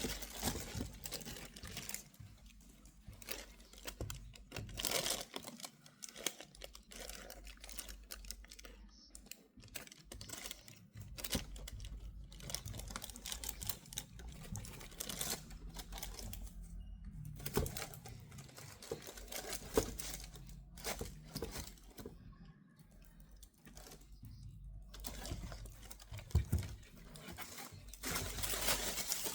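Shoe packaging being handled by hand: paper and wrapping rustling and crinkling, with many small irregular taps and clicks.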